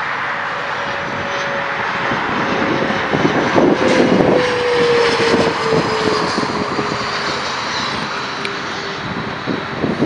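Airliner flying low overhead on its landing approach: a steady engine roar with a whine that falls slowly in pitch as it passes.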